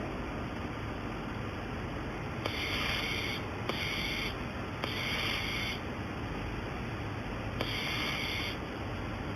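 Welding machine firing in four short bursts of hiss, each under a second and each starting with a click, over a steady machine hum.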